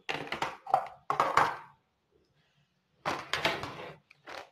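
Plastic zip-lock bag of frozen green chutney cubes crinkling and rustling as it is handled, in four bursts with short pauses between.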